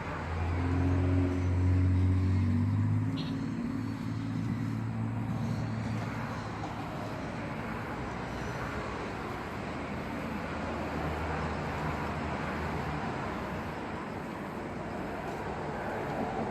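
A motor vehicle's engine passing close by. It swells to its loudest about two seconds in, fades over the next few seconds, and is followed by a steady traffic hum.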